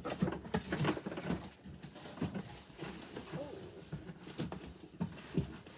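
Cardboard boxes and boxed figures being handled and set down: scattered knocks, taps and rustles.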